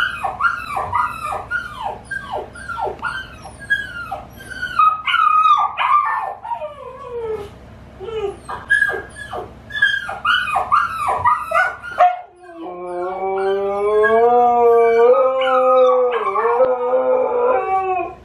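Recorded puppies whimpering and crying in short, high, falling yelps, played through a TV. About two-thirds of the way through, a Siberian husky answers with one long, wavering howl.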